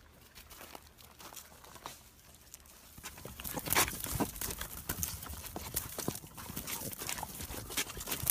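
German Shorthaired Pointer puppies' claws clicking and scrabbling on a hard floor: a quick, irregular patter of sharp clicks that starts about three seconds in.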